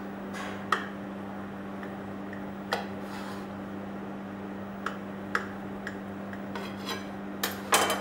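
Metal knife clinking and scraping against a ceramic plate while cutting through a cake: scattered sharp clicks, about nine in all, with the loudest cluster near the end, over a steady low hum.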